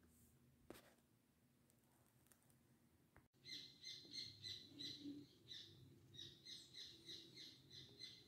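A bird chirping in a quick run of short, high chirps, about three a second, starting about three seconds in. Before that, a single click of a coin set down on a wooden tabletop.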